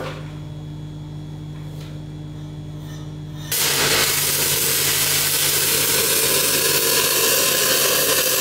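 Stick-welding arc from a cellulose-coated electrode on 4-inch steel pipe, powered by a 1958 Lincoln SA200 engine-driven welder. The arc strikes about three and a half seconds in and burns with a loud, steady crackling hiss; before that only a steady low hum is heard.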